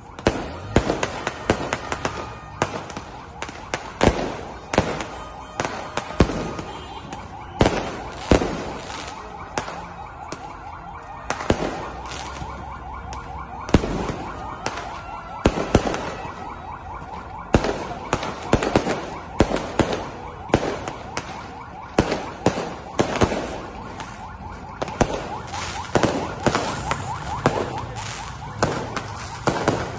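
Fireworks and firecrackers going off in rapid, irregular bangs and crackles, one after another. A wailing, siren-like alarm tone rises and falls underneath, mostly in the second half.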